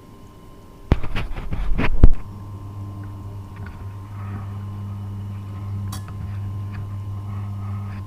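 About a second of knocking and clattering that ends in a sharp click, then the Tormek T8 water-cooled sharpening machine's motor starts and runs with a steady hum.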